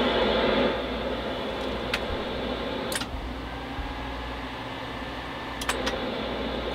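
Steady whir of cooling fans with a low hum while a solid-state UHF amplifier is keyed at full output, about 250 watts, on an FM carrier. There are a few faint clicks about two, three and six seconds in.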